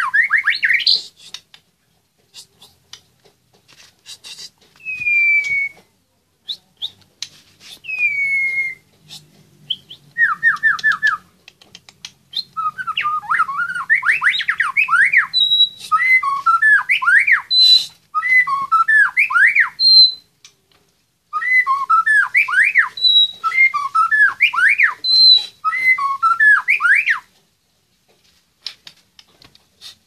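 White-rumped shama (murai batu) singing: a few single slurred whistles, then from about halfway in a long run of fast, varied phrases of rising and falling notes with high clear notes mixed in, stopping a few seconds before the end.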